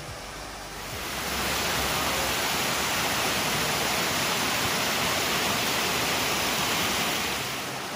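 Small creek cascades spilling over rock ledges, a steady rush of water that grows louder about a second in and eases off near the end.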